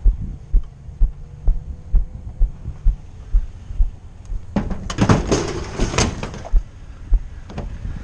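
Footsteps jarring a body-worn camera, giving dull low thumps about two a second. About halfway through there are a couple of seconds of clattering and rustling.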